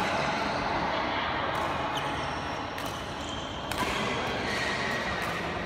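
A handful of sharp, scattered taps echoing through a large sports hall: badminton racket strokes and players' footfalls, over a steady hall din.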